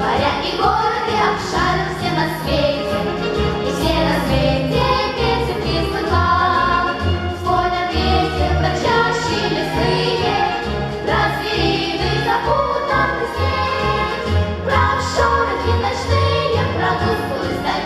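A choir singing a song in unison over an instrumental accompaniment with a steady pulsing bass.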